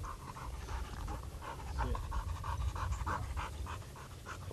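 A dog panting rapidly and steadily, about three to four breaths a second, with a low wind rumble on the microphone.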